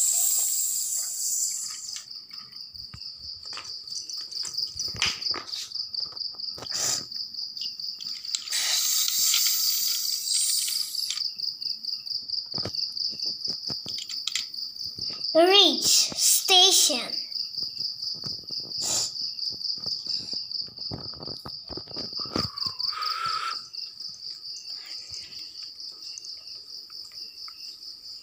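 Battery-powered toy train running around its plastic track, with a quick regular clicking and a steady high-pitched chirring throughout. There are bursts of hiss at the start and about nine seconds in, and a short warbling pitched sound a little past halfway.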